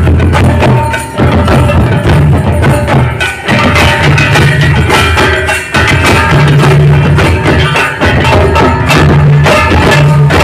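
Live folk drumming on a mandar barrel drum and a large stick-beaten drum: a fast, dense rhythm of strokes over low drum tones.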